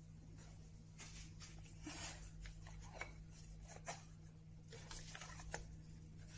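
Faint light taps and short scrapes of small wooden panel pieces being handled on a plywood board, as a thin wooden tongue strip is slid into a groove. A low steady hum runs underneath.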